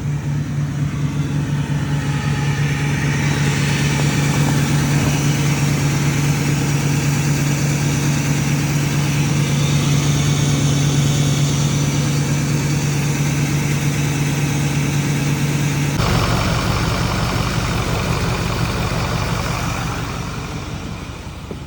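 Ford 6.4 Powerstroke V8 turbo diesel running steadily at a raised idle of about 1100 rpm, higher than this SCT-tuned truck usually idles. The sound changes abruptly about sixteen seconds in and eases off near the end.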